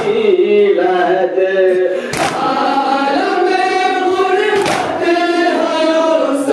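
A group of mourners chanting a nauha (Muharram lament) together in long, drawn-out notes, with a sharp beat about every two and a half seconds.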